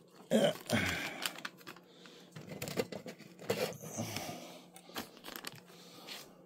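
Cloth rustling and handling noise, with irregular crackly scrapes and a few sharp knocks, as a phone is moved against a fleece blanket.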